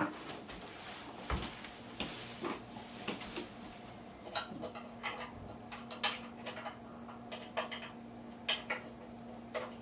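Irregular clicks, taps and knocks of someone handling objects at a kitchen counter, with a steady low hum coming in about halfway through.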